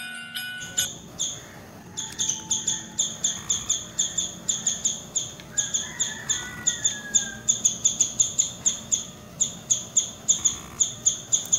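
Squirrel calling: a long run of sharp, high chirps, about three to four a second, coming faster toward the end. Background music stops just under a second in.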